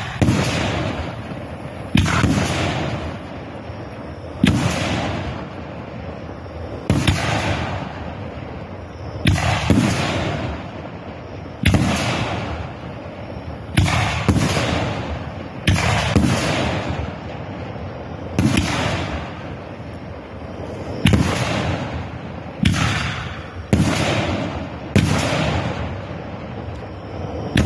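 A 25-shot, 2.5-inch firework cake firing shells one after another: a sharp bang about every two to two and a half seconds, each dying away over the next second or two.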